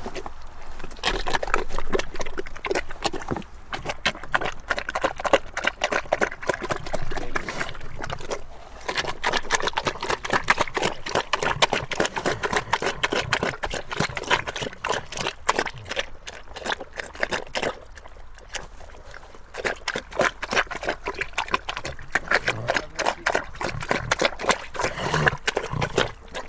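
A pig eating: a dense run of rapid chewing and smacking clicks, coming in bouts with short lulls between them.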